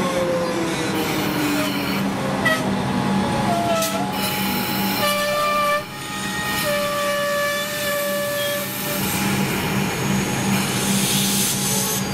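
Comeng electric suburban train moving slowly at the platform, its motor whine falling in pitch over the first couple of seconds as it slows, over a steady low hum. About five seconds in a horn sounds twice, a short blast and then a longer one of about two seconds.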